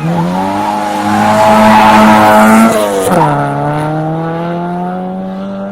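Rally car launching off the start line: the engine revs up hard and is held high with the hiss of spinning tyres. About three seconds in the revs drop sharply at a gear change, and the engine note then holds steady and fades as the car pulls away.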